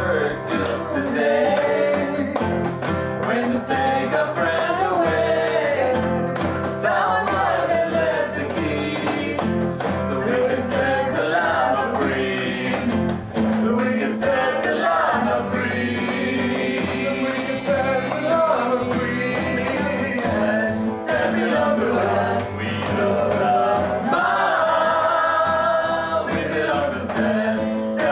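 Several men and women singing together to a strummed acoustic guitar.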